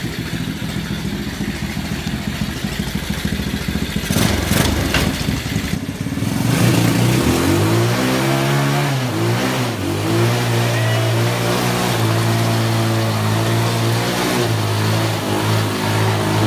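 Foxico 150cc mini jeep's small engine idling steadily, then, after a break about four to six seconds in, revving up and down and held at steady higher revs.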